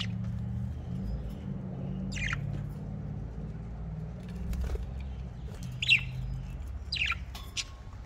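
Budgerigars giving a few short, falling chirps, spaced a few seconds apart, over a low steady rumble.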